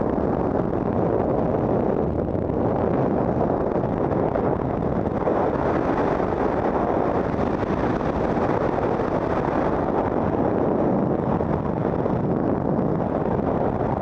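Freefall wind rushing over a helmet-mounted camera's microphone: a steady, loud rush with no break.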